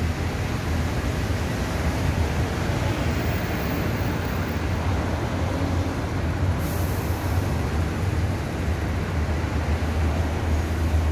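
Steady road traffic rumble with a deep engine drone underneath, and a short high hiss about six and a half seconds in.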